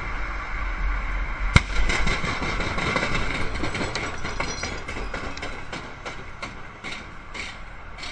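Vehicle road noise with one sharp bang about a second and a half in, a truck tyre blowing out, followed by a run of irregular slapping knocks that thin out and fade as the torn tyre flaps.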